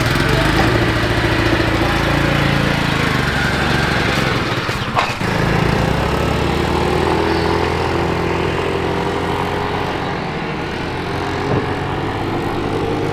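A motor vehicle engine running steadily close by, its pitch shifting a little in the second half, with one brief sharp knock about five seconds in.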